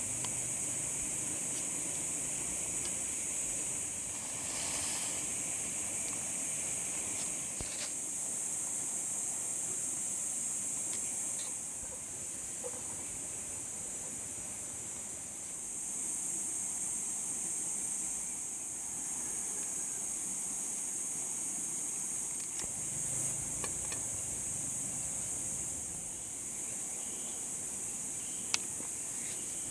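Steady, high-pitched insect chorus that swells and eases a little, with a few faint clicks.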